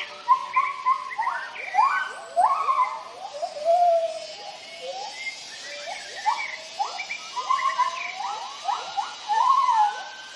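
White-handed gibbons giving their territorial morning call: a run of hooting notes that sweep up and down in pitch, several voices overlapping.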